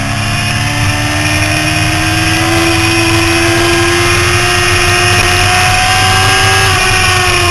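Yamaha YZF-R6 inline-four engine running hard, heard from onboard the bike with wind rush on the microphone. The revs climb slowly while the bike is leaned through a corner, then drop near the end.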